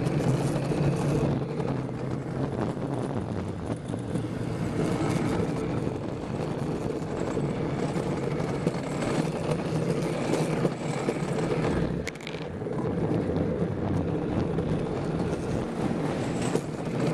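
Luge cart's wheels rolling fast down a concrete track, a steady rumble with a short dip about twelve seconds in.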